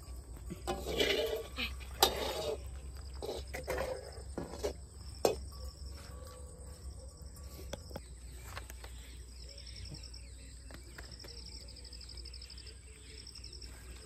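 Outdoor ambience with insects chirping in short, high, repeated trills over a steady low hum. There are a few rustles and sharp clicks in the first five seconds.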